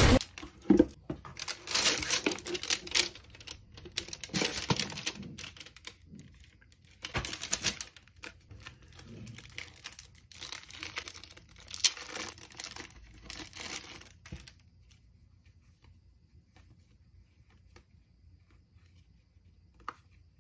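Cardboard packaging and plastic wrap being handled and opened: uneven bursts of rustling and crinkling with sharp clicks for about fourteen seconds, then it goes very quiet except for one faint click near the end.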